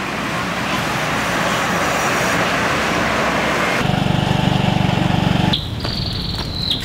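Road traffic noise, then after a cut a motor scooter's engine running for a second or two. Near the end, a high steady tone that drops off.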